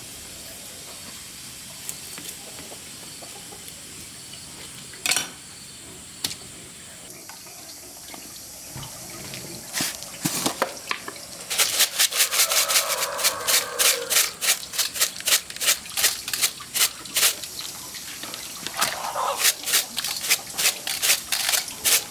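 Water running steadily with a few isolated splashes, then from about halfway a quick, irregular series of splashes and sloshing.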